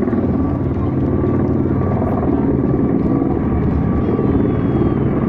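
A formation of helicopters flying toward the listener: a steady, loud rotor and engine rumble with a fast rotor-blade beat.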